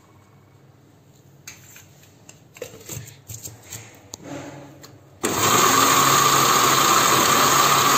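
A few light knocks as the lid is handled onto a glass blender jug, then about five seconds in the blender's motor switches on and runs steadily, beating an egg into creamed sugar and oil.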